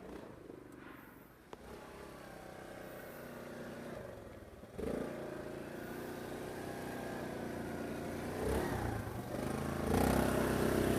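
ATV engine running, quiet at first, then louder from about five seconds in and revving up toward the end.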